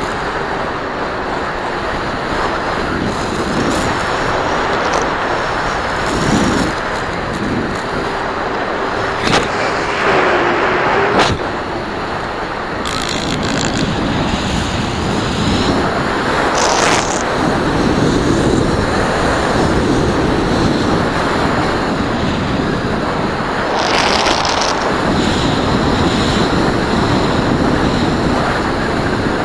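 Airflow rushing over the onboard camera's microphone of an FPV model plane in flight: a steady noisy rush, with a faint steady tone under it for the first ten seconds or so and a few short crackles.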